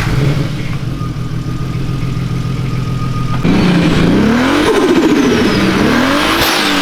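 Turbocharged VR6 engine of a Mk4 GTI running just after start-up: it idles steadily for about three seconds, then is revved up and down a few times.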